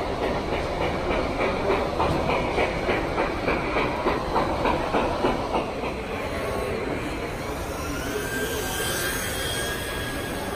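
Model steam locomotive running across a layout bridge with a steady rhythmic clatter, about three beats a second. About six seconds in the rhythm fades into a steadier din with a faint rising whine from a radio-controlled drift car's electric motor.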